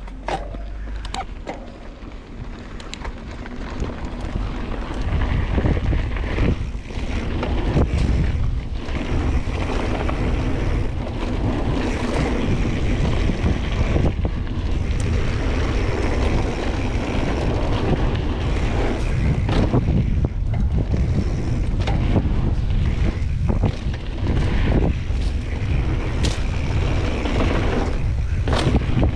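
Wind buffeting the microphone while riding a 2017 Giant Trance 2 mountain bike along a dirt trail, with tyre noise and frequent knocks and rattles from the bike over bumps. The wind rumble builds over the first few seconds and then stays loud.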